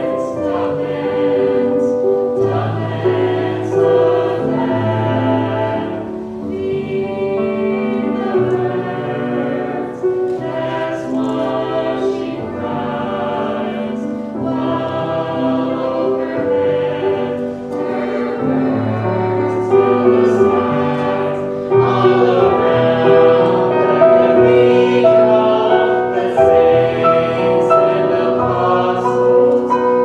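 Small vocal ensemble singing in long held notes, growing louder about two-thirds of the way through.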